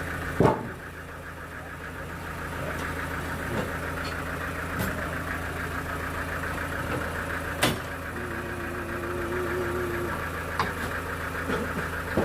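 A sawmill's engine running steadily at idle, a low hum with a fast, even rattle. Two sharp knocks cut through it, the loudest about half a second in and another near eight seconds.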